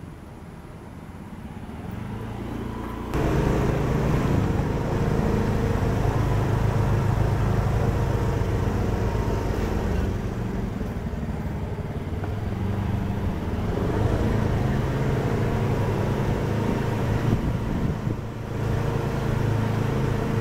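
Motor scooter engine running steadily as it is ridden along, growing louder and then jumping up in level about three seconds in.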